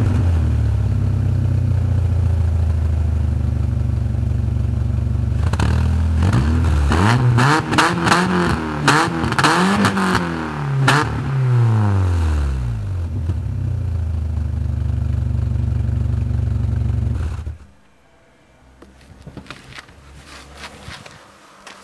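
VW Golf Mk3 1.6-litre 75 PS four-cylinder petrol engine idling just after a start, then revved in several quick blips, its pitch rising and falling, before settling back to idle. The engine is switched off about 17 seconds in and the note stops abruptly, leaving faint clicks.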